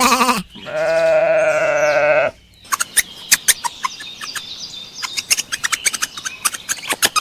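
A bleating call held for nearly two seconds, wavering in pitch. It is followed by a rapid, uneven patter of short sharp clicks and chirps.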